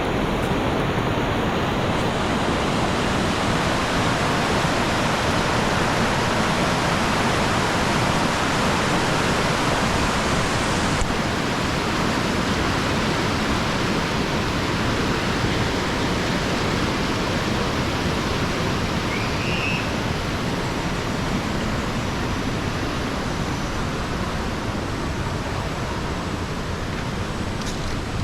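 Waterfall rushing: a steady, even noise without a break.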